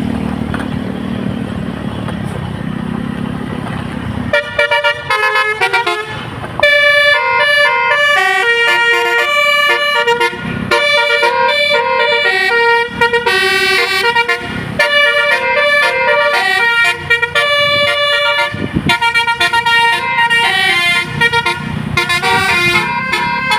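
A bus's engine runs for a few seconds. Then, about four seconds in, its basuri telolet horn starts up: a multi-trumpet horn playing a quick melody of changing notes that keeps going.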